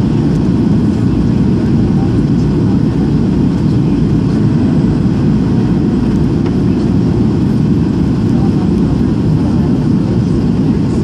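Airliner cabin noise during the descent to landing: a steady low roar heard from inside the cabin.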